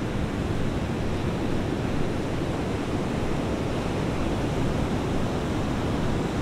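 Ocean surf breaking on a beach, a steady even rushing wash with no single crash standing out.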